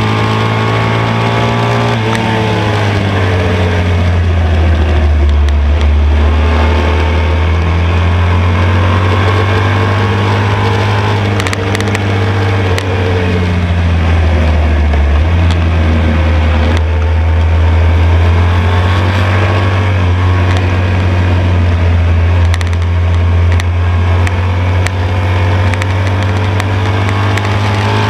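1972 BMW R75/5's air-cooled flat-twin (boxer) engine running hard on track, its note falling and rising several times as the rider shifts, brakes and accelerates through the corners. Wind rushes over the microphone at speed.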